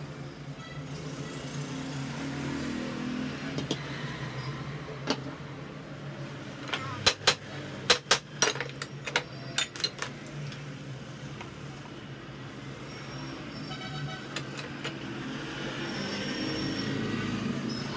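Hammer striking metal at a bench vise: a quick run of about a dozen sharp, ringing blows over about three seconds, a third of the way in, with a few fainter taps later. Under them is a steady low hum of vehicle traffic.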